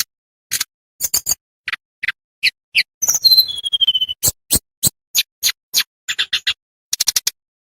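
Tledekan bambu songbird singing: a rapid, irregular string of short, sharp high chirps with clean silence between them. About three seconds in comes a brief descending whistle.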